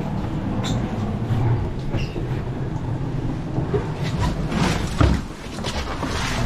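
Steady low rumble of an IMOCA 60 racing yacht's hull moving through the water, heard from inside the cabin, with scattered knocks and one heavy thump about five seconds in.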